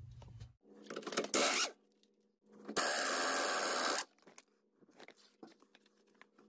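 Impact wrench running a front suspension bolt out: a short burst about a second in, then a steady run of about a second and a half in the middle as the loosened bolt spins out, followed by a few faint clicks of metal.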